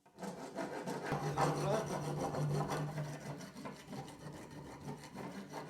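A hand rasp scraping the freshly sawn end of a lead pipe, cleaning it for soldering. The scraping is continuous and loudest in the first half.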